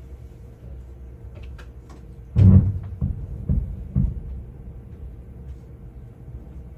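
Airshow pyrotechnic explosions heard from inside the control tower: one heavy boom about two and a half seconds in, then three smaller booms over the next second and a half, over a steady low rumble.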